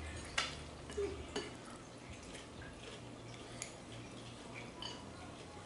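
Quiet eating sounds at a table: a few light clicks and small knocks, the sharpest about half a second in, over a low steady hum that drops away about a second and a half in.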